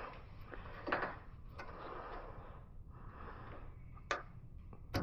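A few light knocks and clicks of truck tailgate hinge parts being handled, about four in all and spaced irregularly, over a faint steady background.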